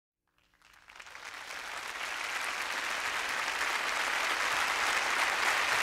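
Audience applauding, fading in from silence about a second in and swelling steadily.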